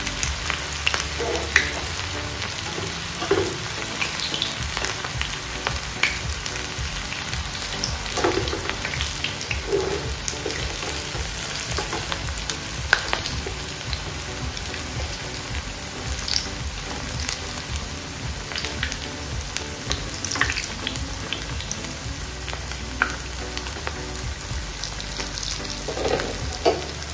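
Vegetable manchurian balls deep-frying in hot oil over a low flame: a steady sizzle with scattered pops and crackles.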